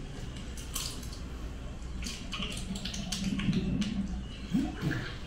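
Watery bubbling and dripping sound effects, scattered short splashes and squelches over a steady low hum.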